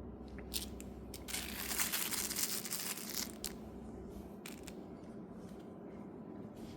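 Crinkling, rustling noise for about two seconds, starting a little over a second in, with a few scattered sharp clicks before and after.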